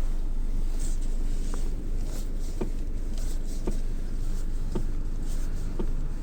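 Hyundai Creta steering column knocking: sharp single knocks about once a second over a steady low rumble. The knock comes from the steering shaft with its electric power steering unit, which the dealer replaces.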